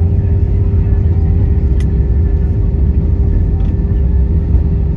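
Heavy, steady rumble in the cabin of an Airbus A320 during its landing rollout, with wheels on the runway and ground spoilers deployed, and a faint steady hum over it. A light click about two seconds in.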